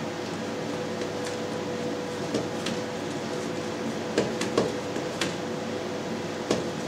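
A steady appliance hum with several held tones, and a few light clicks and knocks from about two seconds in as hands press cheesecloth-wrapped cheese curd into a plastic cheese mould.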